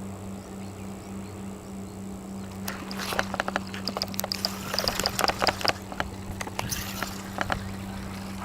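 Fishing reel clicking irregularly for several seconds while a fish is being played on the line, over a steady low hum.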